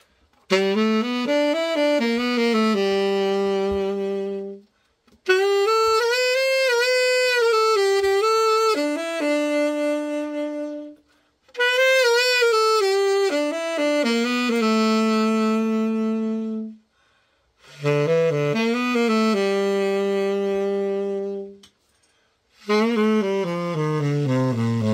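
Selmer Mark VI tenor saxophone played solo as a play test after a full overhaul. Five slow melodic phrases with vibrato, each ending on a held note, with short breath pauses between them.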